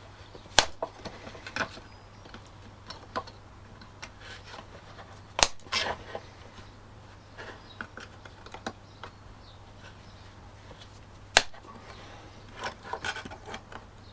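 Sharp snipping clicks of something being cut off the plastic bumper repair: three loud snaps about five seconds apart, with lighter clicks and handling noises in between.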